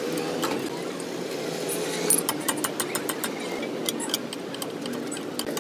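Sharp metallic clicks and knocks of a socket wrench working on the shock absorber strut's lower mounting bolts, over a steady engine-like hum.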